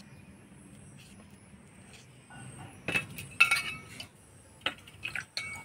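Metal kitchenware clinking and knocking: a few sharp clinks of utensils against pots or dishes in the second half, after a quiet start.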